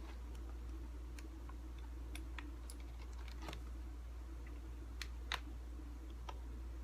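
Scattered small, irregular plastic clicks as a small screwdriver pries at the snapped-in plastic screen bezel of an HP G62 laptop, the loudest a little after five seconds in, over a steady low hum.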